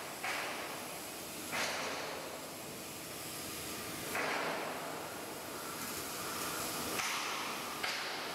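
CNC line-bore machine with a right-angle milling head running: a steady mechanical whir under a hiss that swells abruptly several times.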